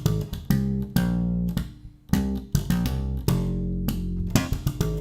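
Electric bass, an ESP LTD B-155DX five-string, played solo: a run of plucked notes with sharp attacks, some short and some held, with a brief gap about two seconds in. It is the bass line for the last part of a chorus.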